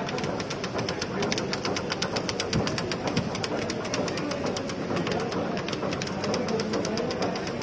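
Label die-cutting and rewinding machine running, with a fast, even ticking of several strokes a second over its mechanical running noise.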